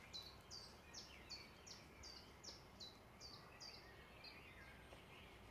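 A small songbird calling faintly: one short, high note sliding downward, repeated about three times a second a dozen times in a row, stopping near the end.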